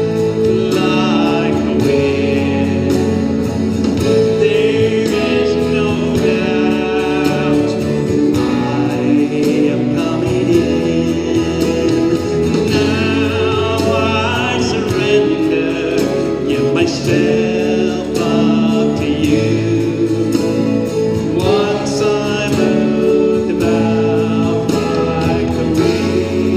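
Music: a Celtic and Native American fusion piece, with a held, wavering lead melody over steady accompaniment.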